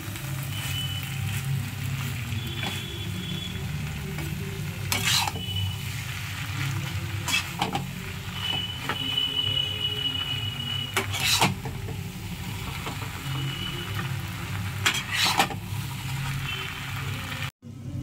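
Chowmein noodles sizzling as they are stirred and tossed in a coated frying pan with a metal slotted spatula. Every few seconds the spatula scrapes and knocks sharply against the pan, over a steady low hum. The sound cuts out briefly near the end.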